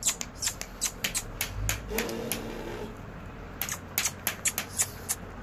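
Scattered sharp clicks and taps, several a second, from a pen of young goat kids moving on a hard concrete floor. A faint low tone comes in about two seconds in and fades within a second.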